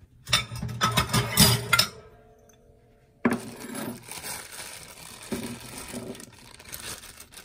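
Dishes clinking and clattering as a ceramic bowl is fetched. From about three seconds in, a thin plastic bag rustles as peeled garlic cloves are tipped out of it into the bowl, with a few small knocks of cloves landing.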